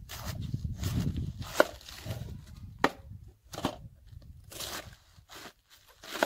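Large knife cutting through a head of cabbage on a wooden board: crisp, crunching slices about once a second, some ending in a sharp knock as the blade hits the board. A low rumble sits under the first half.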